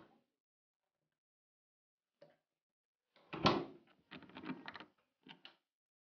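A door is pushed shut with a thud about three and a half seconds in, followed by the rattling clicks of its metal thumb-turn lock being turned, and one more click near the end.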